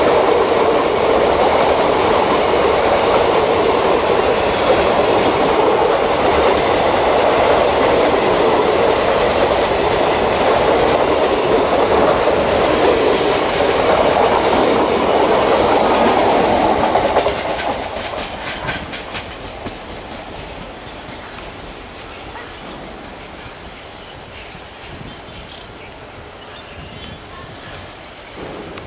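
Passenger coaches of an express train rolling past, their wheels clattering steadily over the rail joints. About seventeen seconds in the sound drops suddenly as the last coach goes by, with a few last clicks, then fades away as the train recedes.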